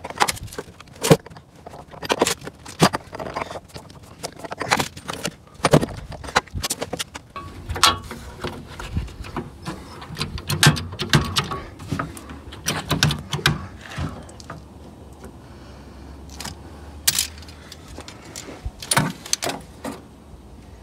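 Irregular metallic clinks, taps and rattles of steel brackets, hardware and hand tools being handled, with a few sharper knocks.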